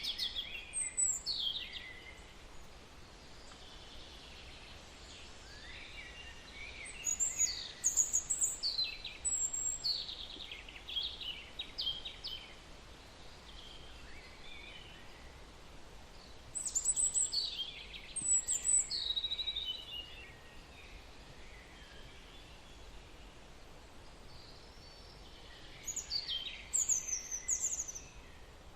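Songbird singing in runs of quick, high chirps that slide downward, each run lasting a few seconds and coming back about every nine seconds, over a faint steady hiss.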